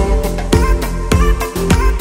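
Background music with a steady beat, a little under two beats a second, over a deep bass line.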